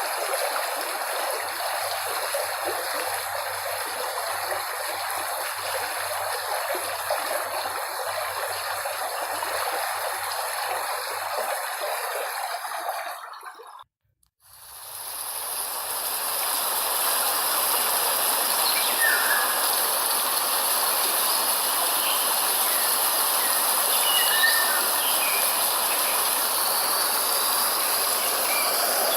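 A flowing stream's steady rush of water fades out about halfway through. After a brief silence, a new steady hiss fades in, with a few short bird chirps scattered through its later part.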